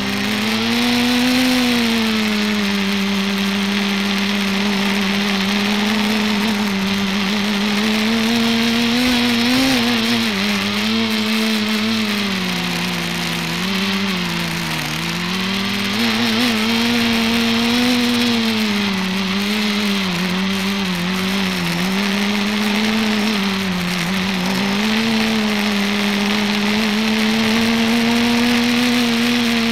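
ETFD2 R/C multicopter (flying disc) heard from its onboard camera: its motors and propellers hum at a steady pitch that dips and recovers several times as the throttle changes, over a rushing hiss of air.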